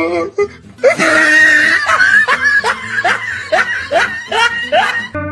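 A person laughing hard in a string of short rising whoops, about two or three a second, which cuts off abruptly about five seconds in.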